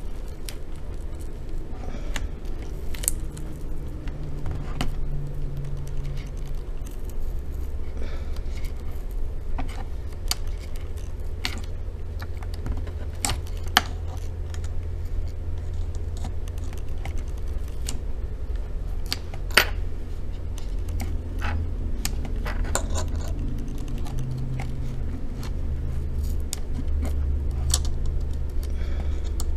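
Small metal flathead screwdriver tip clicking and scraping against the plastic around an HP Stream laptop's hinge as it is pushed through the adhesive tape over the hinge screw: scattered sharp ticks, two louder snaps about 14 and 20 seconds in. A steady low hum runs underneath.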